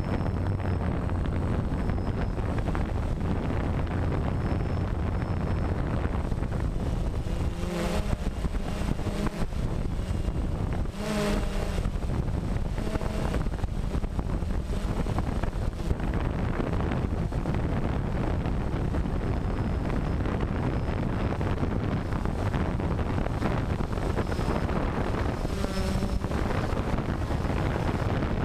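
DJI Phantom quadcopter's motors and propellers whirring steadily, heard from the camera mounted on it, with wind buffeting the microphone. A few brief changes in tone come about 8, 11 and 26 seconds in.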